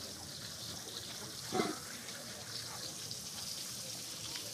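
A man's short muffled vocal sound, about a second and a half in, as he bites into a very hot fried frog leg, over a steady hiss.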